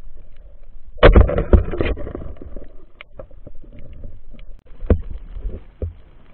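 Underwater swimming noise picked up by a submerged camera: water swishing and bubbling, with a loud burst about a second in and scattered sharp clicks throughout.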